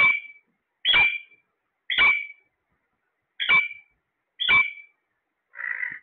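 Alexandrine parakeet giving a series of loud, short, shrill calls, about one a second, six in all; the last, near the end, is harsher.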